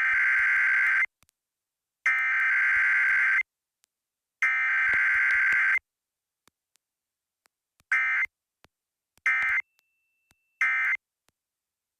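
Emergency Alert System SAME digital data bursts: a harsh two-tone buzzing, three long bursts about a second apart, then three much shorter bursts near the end. This pattern is typical of an EAS header sent three times, followed by the three end-of-message codes of a Required Weekly Test.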